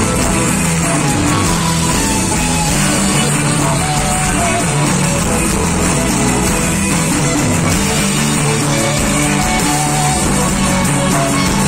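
Loud amplified live band music in the urban-Andean style, a melody line over a dense, steady bass and rhythm part, with no breaks.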